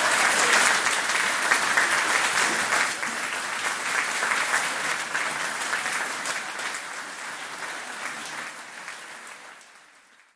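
Audience applauding, a dense patter of many hands clapping that fades away steadily to almost nothing by the end.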